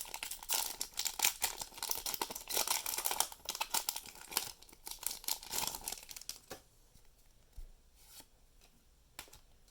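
Foil Pokémon TCG booster pack being torn open and crinkled for about six and a half seconds, then much quieter with a few light ticks.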